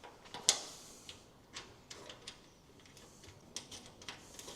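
Small metal parts clicking and tapping as bolts, washers and a steel bracket are handled and fitted to a jeep bonnet, with one sharper click about half a second in and lighter ticks after it.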